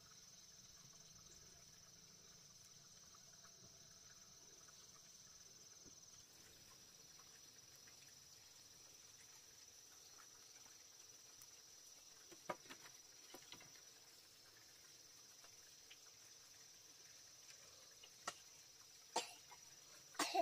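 Faint, steady high-pitched insect chirring, with a few sharp light clicks or knocks in the last third, the loudest near the end.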